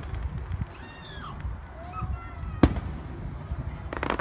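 Aerial fireworks exploding: one sharp bang about two and a half seconds in, then a quick run of crackling near the end, over a low rumble. A few high, sliding cries sound in the first half.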